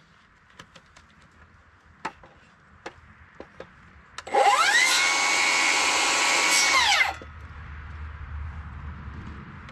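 Cordless power saw spinning up with a rising whine, running steadily for about two and a half seconds, then stopping. Light clicks and knocks of handling come before it.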